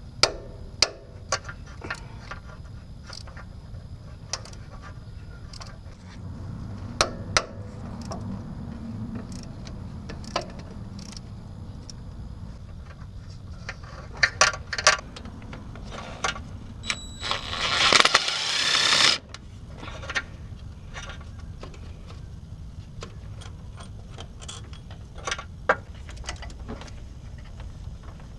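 Hand tools clicking and clinking on metal while the AC compressor is being unbolted, with scattered sharp clicks throughout. One louder rushing burst lasts about a second about two-thirds of the way in.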